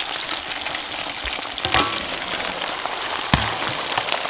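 Shrimp and green cubes deep-frying in a large wok of hot oil: a steady, crackling sizzle. A sharp knock sounds about three seconds in.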